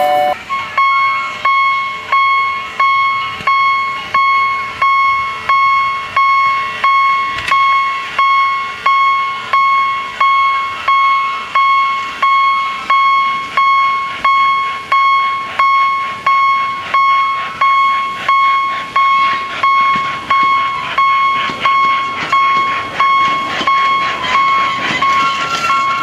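Japanese-style level-crossing warning bell sounding from the loudspeaker on a miniature railway crossing signal: a steady electronic "kan-kan" ding repeating about 1.4 times a second. Near the end a second, higher bell tone joins in.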